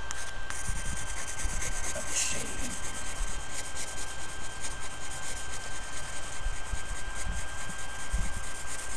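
Soft graphite pencil shading on paper: quick back-and-forth strokes scratching steadily across the sheet to build up dark shadow.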